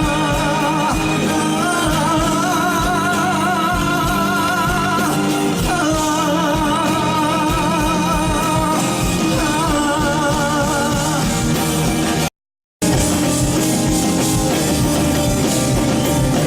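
Live band music with guitar and drums under a held, wavering sung melody. The sound cuts out completely for about half a second some twelve seconds in, a gap in a recovered video file.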